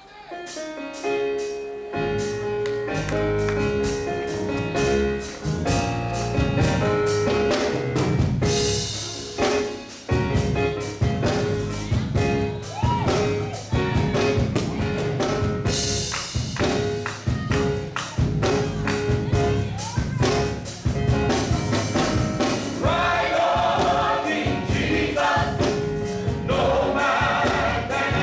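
Live gospel music: a band with a steady beat and a choir singing. The music starts up about two seconds in, and the voices grow stronger near the end.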